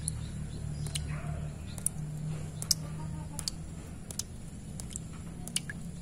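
Water drops falling into a shallow puddle among stones, each landing with a short, sharp plink, irregularly about once a second, over a low steady hum.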